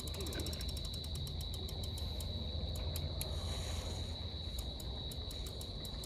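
Fishing reel clicking in quick runs of ticks, fast in the first second or so, then slower and uneven. Behind it runs a steady high trill from a cricket.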